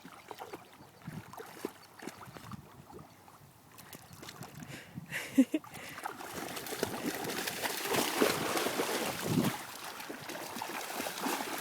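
Dogs splashing and paddling in shallow river water. The splashing grows much louder about halfway through.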